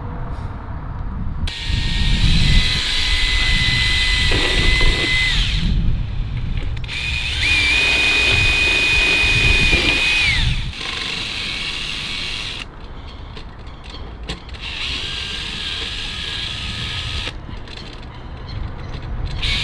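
DeWalt cordless drill running in three bursts of a few seconds each, boring bolt holes through a porthole frame. Each burst is a steady motor whine, and the pitch drops as the drill winds down after the second burst.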